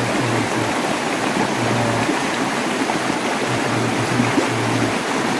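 Shallow rocky stream rushing over stones, a steady wash of water noise.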